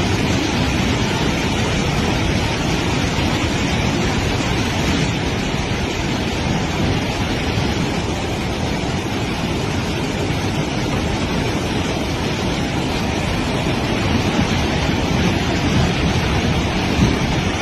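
Loud, steady rush of floodwater pouring through a broken dam flood gate, an even roar with no let-up.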